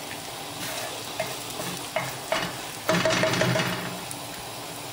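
Oil and a little chopped onion sizzling in a frying pan as a soffritto, with a few sharp pops and a louder stretch of sizzling about three seconds in.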